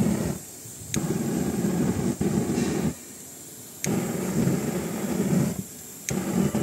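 Aerosol spray lit into a jet of flame, rumbling in about four bursts of one to two seconds each, with short quiet gaps between. A sharp click starts each burst.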